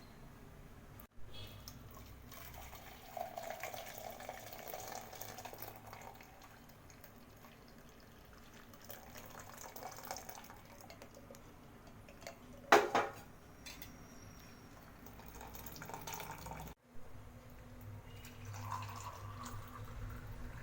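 Liquid being poured and dripping, with one sharp clink of a vessel a little past halfway. The sound drops out abruptly twice.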